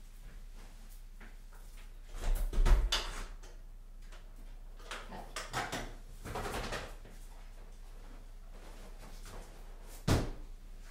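A door being opened and shut: a loud clatter about two seconds in, quieter rustling and knocking in the middle, and one sharp knock near the end as a door closes.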